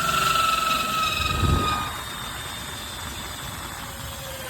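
Power drill turning a 2-inch hole saw, cutting into the plastic of an EZGO charging receptacle. The motor's whine falls slightly in pitch over the first two seconds, then a steady cutting noise.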